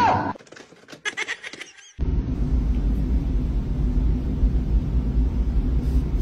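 A few short, faint high-pitched chirps in the first two seconds, then a steady low rumble that starts suddenly about two seconds in and keeps on.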